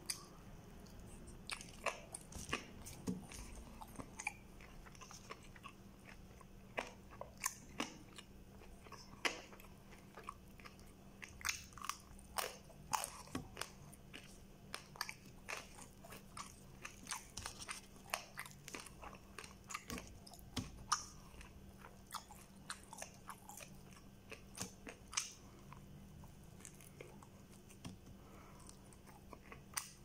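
Close-up mouth sounds of a person biting and chewing fried chicken eaten by hand: irregular crunchy bites, smacks and clicks all through, over a faint steady hum.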